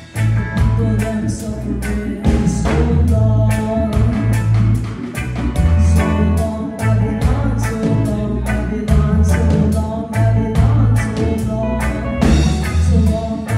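Live reggae band music: a woman singing over electric guitar, a strong bass line and a steady beat.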